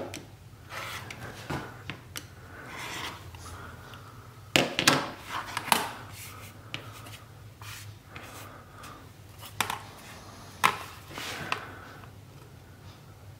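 Rotary cutter, acrylic Tucker Trimmer ruler and fabric pieces handled on a cutting mat while trimming half-square triangles: scattered clicks, knocks and rubbing. The loudest knocks come in a cluster about five seconds in and again near eleven seconds.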